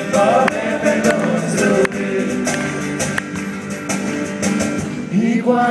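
Live acoustic band playing: acoustic guitars strumming and picking between sung lines of a song.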